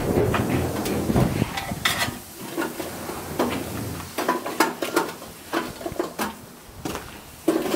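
Long metal barbecue fork prodding and shifting burning charcoal briquettes in a stainless steel barbecue: irregular clinks, scrapes and knocks of metal against coal and the steel bowl.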